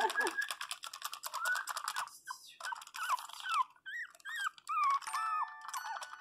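Pinscher puppy whining in a string of short, high, squeaky whimpers that rise and fall in pitch. A rapid clicking runs under the first two seconds, and a few steady tones come in near the end.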